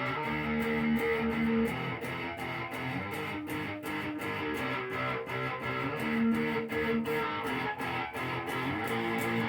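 Electric guitar played through an amplifier: picked and strummed chords and notes ringing out in a steady run.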